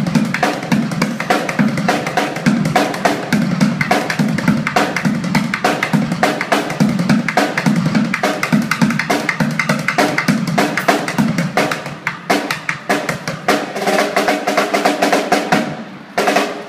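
Street drummer playing a fast, dense rhythm with drumsticks on an improvised kit of plastic buckets, metal cans, tins and bowls. About thirteen seconds in, steady ringing tones join the strikes. The playing breaks off with a last loud hit near the end.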